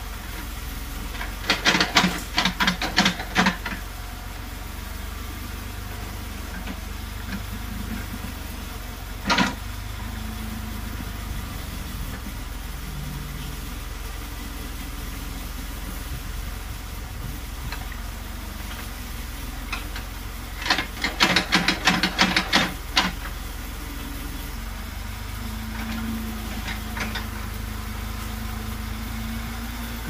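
Massey Ferguson 35 tractor engine running steadily while powering a backhoe attachment digging a trench. There are two bursts of rapid sharp clattering knocks, each about two seconds long, one soon after the start and one about two-thirds of the way through, and a single knock in between.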